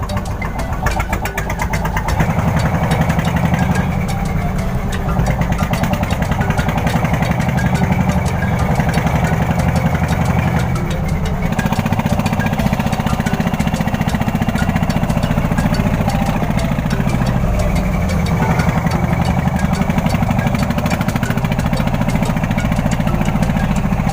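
Klotok motorboat's inboard engine running steadily with a fast, even chugging, a little louder from about two seconds in.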